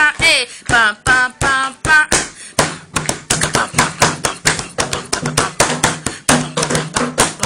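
Festejo music: a voice sings short rhythmic syllables for about the first two seconds, then quick hand percussion, taps and claps several a second over a low bass line, carries the beat.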